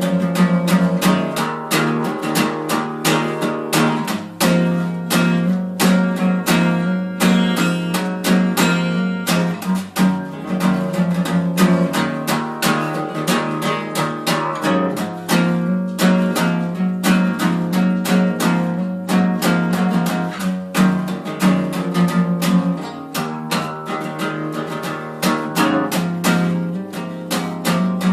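Acoustic guitar strummed in a steady rhythm, several strokes a second, with chords ringing on.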